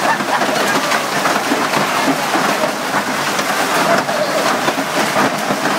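Hailstones pelting down in a heavy storm: a loud, steady, dense clatter of countless small impacts.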